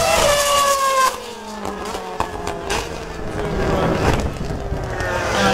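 Mercedes Formula One car's engine running at high revs, its pitch falling as it goes by. About a second in the sound drops off sharply, and a fainter engine note carries on, still slowly falling in pitch as it moves away.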